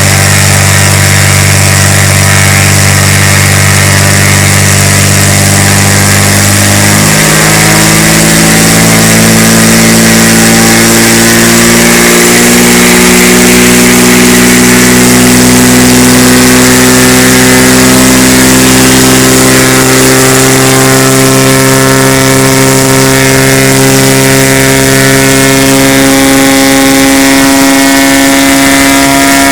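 Cessna U206F's freshly overhauled six-cylinder Continental IO-520 engine and propeller running loud and steady, then opened up about seven seconds in, its pitch climbing slowly as it goes to full throttle.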